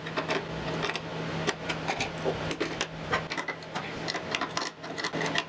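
Hand wrench tightening hex nuts on threaded rod against a plywood plate: a run of small, irregular metallic clicks and ticks, over a low steady hum.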